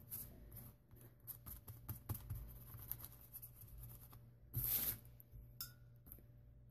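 Faint scratchy strokes of a paintbrush laying silver paint across a paper journal page, with a brief louder rustle about four and a half seconds in.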